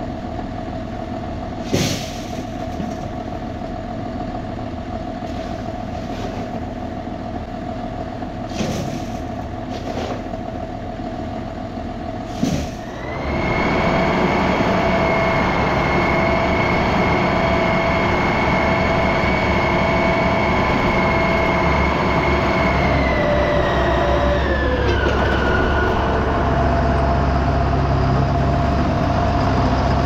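Tractor-driven Gehl 100 grinder-mixer running with a steady hum, with a few sharp knocks as ear corn goes in. About thirteen seconds in, a louder machine run with a high steady whine takes over. Its pitch drops about twenty-four seconds in, leaving a deeper rumble.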